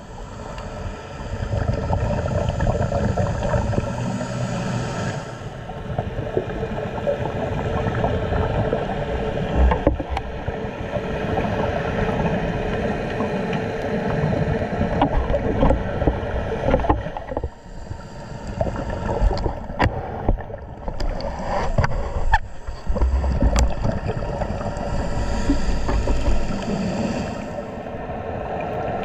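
A boat's engine running steadily, with water noise.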